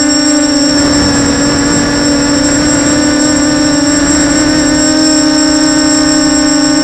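FPV quadcopter's electric motors and 6045 bullnose propellers whining at a steady pitch, heard from the quad's own onboard camera, with a rush of wind noise about a second in.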